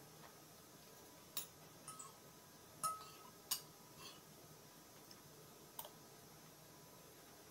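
Metal spoon and fork clinking and scraping against a ceramic plate while eating: about half a dozen sharp clinks spread over several seconds, one ringing briefly about three seconds in.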